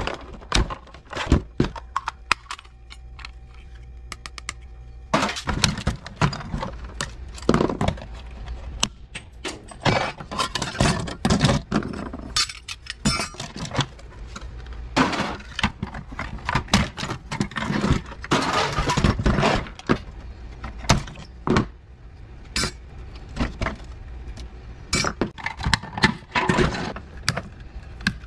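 Plastic housing and inner frames of a Keurig coffee machine being pried apart and handled by hand: an irregular run of snaps, knocks and clinks of plastic and small metal parts on a workbench, with a short quieter pause about two seconds in.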